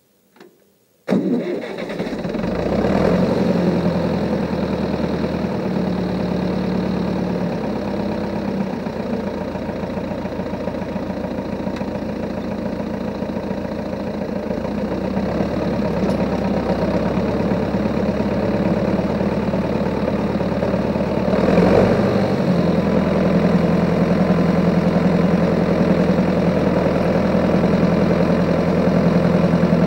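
Engine of a homemade tractor firing up suddenly about a second in, then running steadily, with a brief rise in level and a change in pitch about two thirds of the way through.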